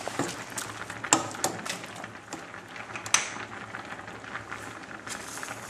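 Plastic slotted spoon stirring meat sauce in a stainless-steel pot, knocking and scraping against the pot in several sharp clicks over the first three seconds, then stopping. The sauce cooks underneath with a steady hiss.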